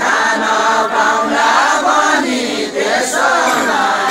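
A group of men singing a Deuda folk song together in chorus, the voices held and swaying on long sung lines, as part of a sung dohori exchange.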